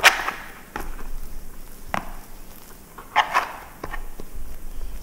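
Hands patting and smoothing oil-coated dough on a plastic cutting board: a few soft slaps and taps. The loudest comes right at the start, with a short cluster a little over three seconds in.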